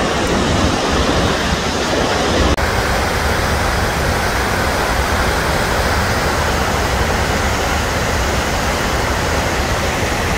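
Steady roar of Gullfoss waterfall, a large glacial-river waterfall, heard close up as an even rushing of falling water. It breaks off for an instant about two and a half seconds in.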